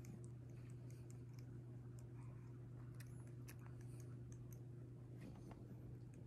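Small comb drawn through a cat's fur, giving light scratchy ticks and clicks, over a steady low hum.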